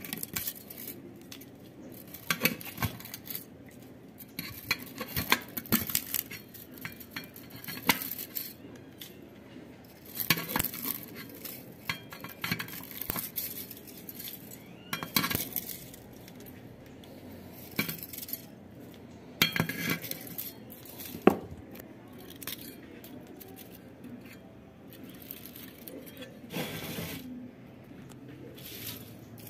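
Irregular metallic clinks and scrapes of old aluminium winding wire being pulled out of the stator slots of a 1/2 hp WEG pump motor, the wire ends rattling against the steel core and housing.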